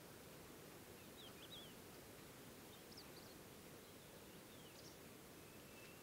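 Faint songbird song over a steady low background noise: a short warbled phrase about a second in, a few high rising notes around three seconds, more notes later, and a thin drawn-out whistle near the end.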